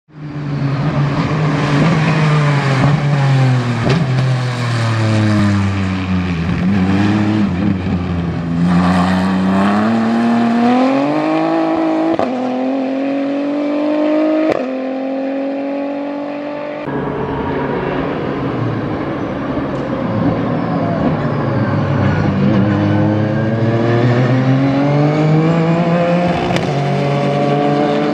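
Ligier JS P4 race car's Ford 3.7-litre V6 engine at racing speed, its pitch falling and climbing again and again as the car brakes, shifts and accelerates. About 17 seconds in, the sound switches abruptly to another pass of the car.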